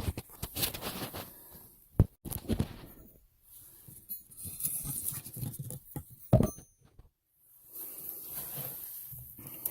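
Hands and tools working wires into the terminals of a well pump pressure switch: irregular scraping and rustling with scattered clicks, and two sharp clicks, one about two seconds in and a louder one a little after six seconds.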